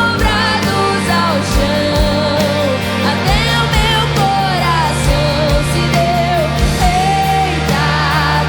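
Contemporary worship song played by a full band, with drums, bass, electric guitar and keys. A melody line bends in pitch over a steady bass and regular drum hits.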